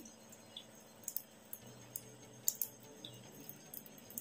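Quiet kitchen with a few scattered light clicks and taps from hands handling marinated fish pieces in a plastic tub, the sharpest about two and a half seconds in.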